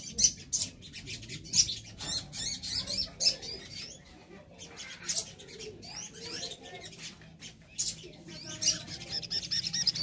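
Several caged brown-throated sunbirds calling with short, sharp chips and twitters, with wing flutters. About nine seconds in, one starts a fast, rapidly repeated trill.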